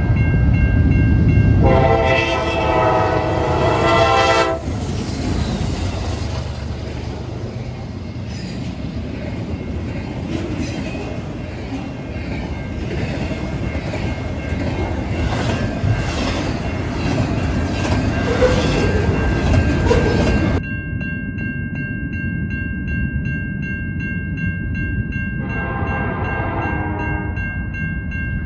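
A freight locomotive blows its horn for a level crossing while the crossing bells ring. Then a double-stack intermodal train rolls past with a steady rumble and clatter of wheels on rail. After a sudden cut, another horn sounds for about three seconds near the end.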